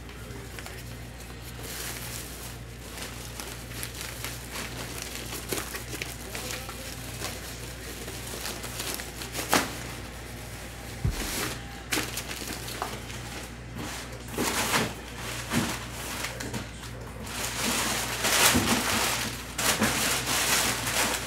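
A bag or packaging being handled, crinkling and rustling in bursts that grow busier and louder over the last several seconds, with scattered clicks and knocks. A low steady electrical hum runs underneath.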